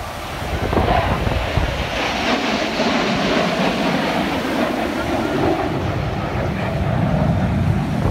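Jet engine noise from four military jets flying past overhead in formation, swelling about half a second in and then holding steady.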